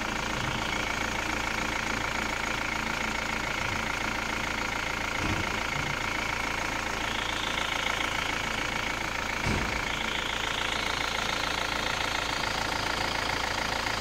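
Car engine idling steadily, heard up close at its newly fitted crankshaft pulley and harmonic balancer. It runs evenly, without the deep bottom-end knocking that the failed balancer had caused.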